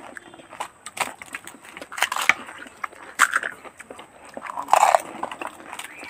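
Crisp fuchka (pani puri) shells being cracked open with the fingers and crunched and chewed by two people eating fast: irregular crackles and short crunching bursts, loudest about two, three and five seconds in.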